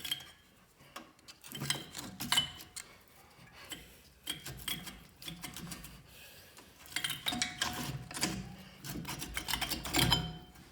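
Light metallic clinks and scrapes of a brake caliper and its old pads being handled and pulled off a car's front brake, some clinks ringing briefly. They come in bunches about two seconds in, around seven to eight seconds, and near the end.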